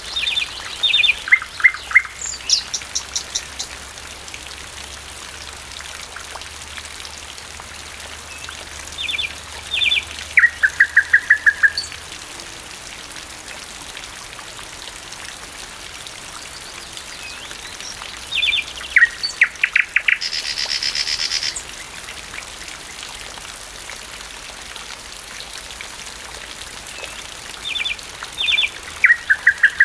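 Thrush nightingale singing in steady rain: four short phrases of rapidly repeated sharp notes, about nine seconds apart, one ending in a buzzing rattle, over the even patter of rainfall.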